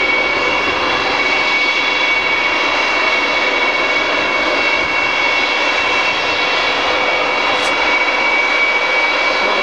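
The four Progress D-18T turbofan engines of an Antonov An-124 running at taxi power. A steady, loud jet noise carries a high whine made of several steady tones.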